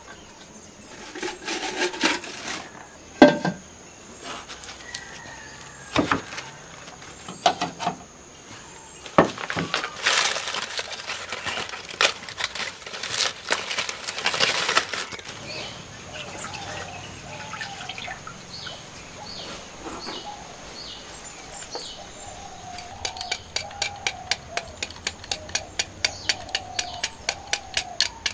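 Dry leaf wrapping crackles and rustles as a block of jaggery is unwrapped by hand. Then, with small birds chirping in the background, a knife scrapes the hard jaggery into a clay bowl in steady strokes, about two to three a second, near the end.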